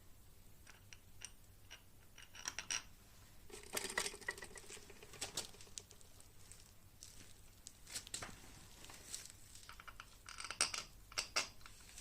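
Scattered small clicks, taps and short scrapes of bolts and tools being handled on a workshop floor. There is a denser rustling burst about four seconds in and another cluster of sharp clicks near the end.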